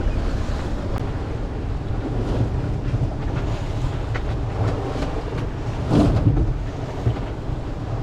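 Strong wind buffeting the microphone over the rush of waves along a sailboat's hull in rough seas, with one louder surge of water about six seconds in.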